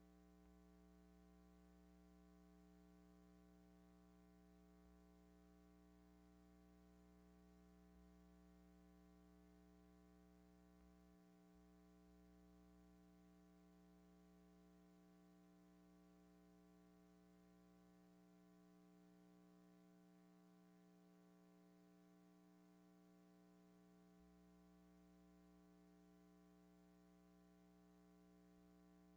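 Near silence: an empty soundtrack with only a faint, steady electrical hum and hiss.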